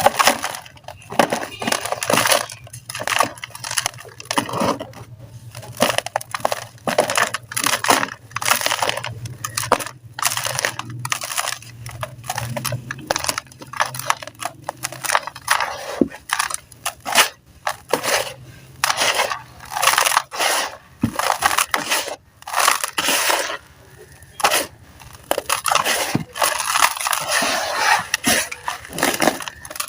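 Soft, grainy sand-cement slabs being crumbled in a tub: gritty crunches and crackles coming thick and irregular, with short pauses between handfuls.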